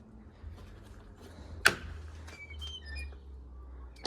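A single sharp click from the gate's door closer as the gate is pulled off its hold-open and released, followed a moment later by a few short, high bird chirps.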